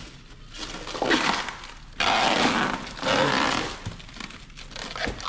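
Packaging of a new wheel being ripped and pulled open: three loud, noisy tearing and crackling bursts, the middle one starting sharply.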